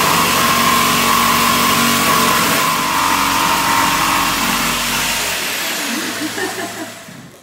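Corded hand-held power tool cutting at the base of a wall, a loud steady high whine over a wide hiss, while first-fix plumbing pipe runs are being made. It winds down and fades away near the end.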